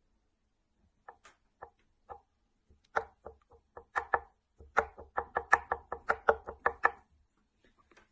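A pencil tapped on a wooden tabletop: a few slow taps, then a quickening run of about five taps a second that stops about a second before the end.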